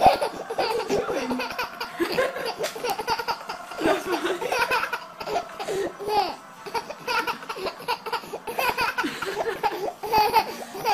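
A baby laughing hard, over and over, in a long run of laughter that starts suddenly and keeps going.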